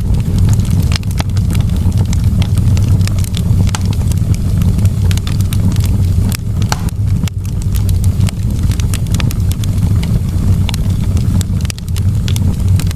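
Wood fire burning in a fireplace, crackling with frequent irregular pops and snaps over a steady low rumble of the flames.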